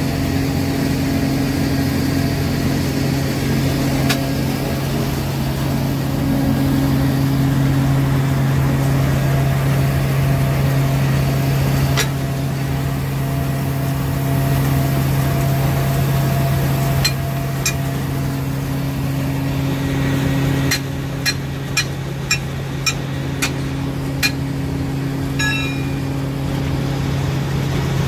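Tractor engine running steadily, driving a feed grinder through its PTO shaft, with a constant low hum. A few sharp knocks, and a quick run of them near the end.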